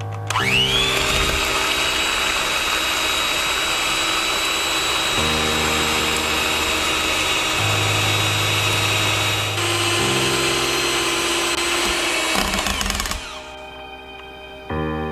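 Electric hand mixer whirring as its twin beaters whip egg whites into meringue in a stainless steel bowl. The motor spins up with a rising whine just after the start, runs steadily, and winds down about thirteen seconds in. Background music plays underneath.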